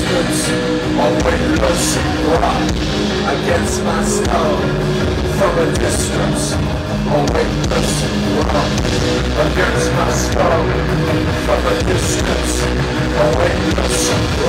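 Live heavy rock band playing loudly, with guitars and drums and cymbal hits cutting through about every half second to second.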